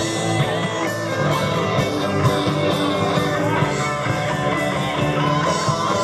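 Live rock band playing: electric guitars over bass and a drum kit, with steady drum hits throughout.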